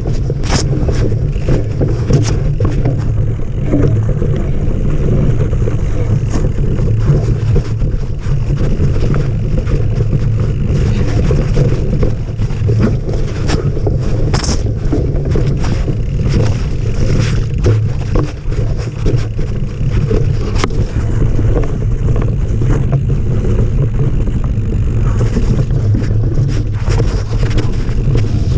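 Mountain bike rolling fast down a dirt forest trail: a steady rumble of tyres and wind on the action camera's microphone, with frequent sharp clicks and rattles as the bike goes over roots and rocks.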